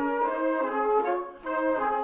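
Wind band's brass playing held chords in the middle register, the chord changing about every half second, with a brief break about a second and a half in.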